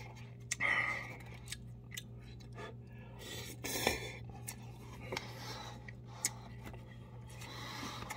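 Close-up eating sounds of cup noodles: wooden chopsticks clicking and tapping against the paper cups, with two short slurps about a second in and near the middle.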